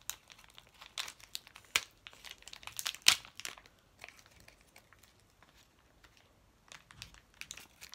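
Thin plastic foil packet crinkling and tearing as small fingers pick it open. It comes as sharp crackles in two spells, with a quiet gap in the middle.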